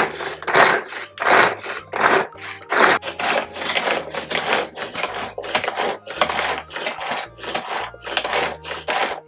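Pull-cord manual food chopper whirring and rattling as its cord is yanked again and again, spinning the blades through carrot in the plastic bowl, with a pull about every two-thirds of a second.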